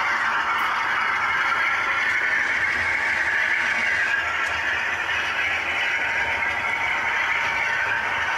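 OO gauge model train running along the layout's track, a steady rattle and rumble of wheels on rail.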